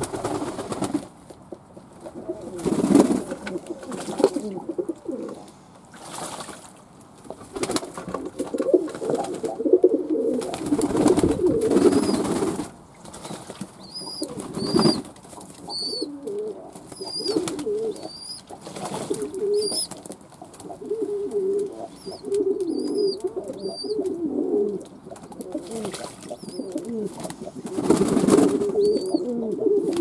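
Fantail pigeons cooing over and over, low wavering coos from several birds, with short bursts of noise now and then and faint high chirps through the middle stretch.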